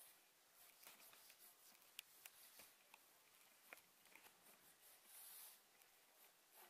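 Faint scratching of a graphite pencil sketching on watercolor paper, in short strokes with a few light ticks between them.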